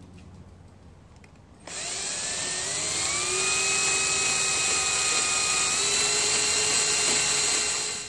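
Cordless drill with a 35 mm Forstner bit boring a hinge-cup recess into bamboo plywood. The motor starts suddenly about one and a half seconds in, its whine rises in pitch over the next second, then runs steady until it stops at the very end.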